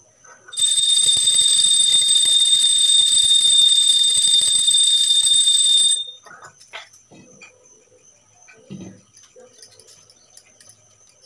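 Hand-held puja bell (ghanti) rung rapidly and continuously during the incense-and-lamp offering: a bright ringing over a fast clatter of strikes, starting about half a second in and cutting off abruptly about six seconds in. After it, a few faint knocks of puja items being handled.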